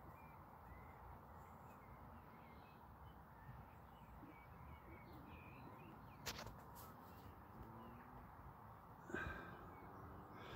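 Near silence: faint outdoor ambience with a few distant bird calls, and a brief click a little past halfway.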